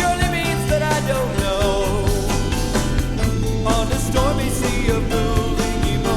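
Background rock song with a singer and a steady beat.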